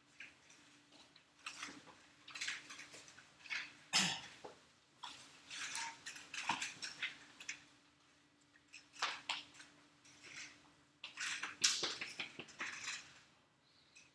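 Irregular rustling, clicks and light clatter in a room, with two sharper knocks about 4 and 11.7 seconds in, over a faint steady hum.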